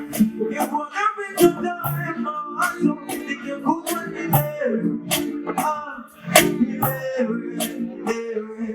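Music with a steady beat, sharp percussion hits about twice a second under melodic lines.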